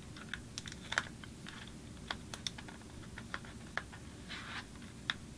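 Fingers and fingernails handling a folded cardstock flexagon while pressing a strip of clear tape onto it: scattered light clicks and taps at uneven intervals, with a short rustle of paper about four and a half seconds in.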